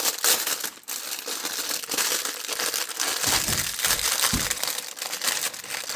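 Plastic packaging crinkling and rustling by hand while a new cartridge oil filter is unwrapped.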